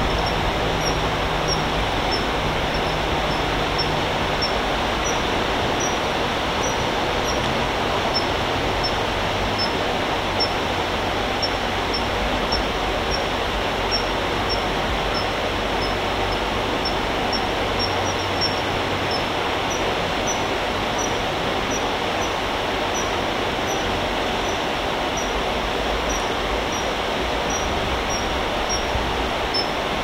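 Thin, high chirps repeated about twice a second without a break, typical of a fledgling common kingfisher begging for food, over a steady rushing background noise.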